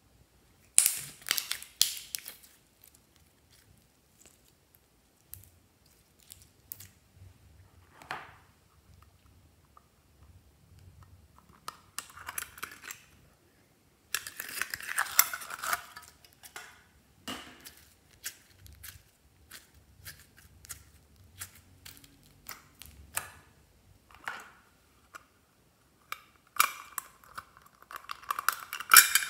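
Hands squeezing and pressing glossy slime, sticky crackles and squelches in short bursts, alongside clicks and taps from handling a small metal coin-bank tin.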